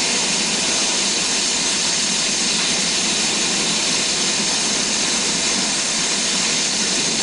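Steady, even hiss of white noise, unchanging throughout.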